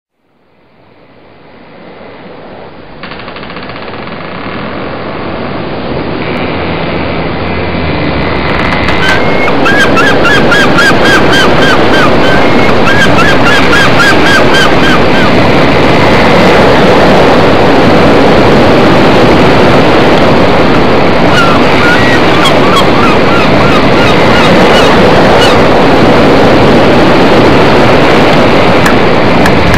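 Loud rushing wind and water noise aboard a boat under way at sea, fading in over the first ten seconds. Two runs of rapid, repeated high chirps rise above it, one in the middle and one later on.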